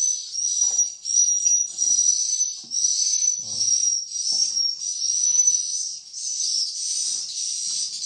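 High, thin swiftlet chirps repeat about twice a second without a break. Under them, a small trowel scrapes swiftlet droppings off a concrete floor in short strokes, roughly once a second.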